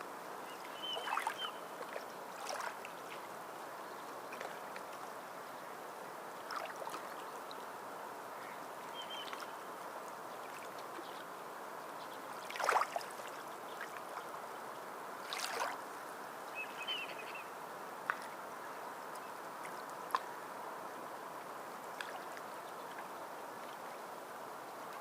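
Water running and lapping steadily, with occasional sharper splashes, the loudest about halfway through. A few short, faint chirps from a bird come through three times.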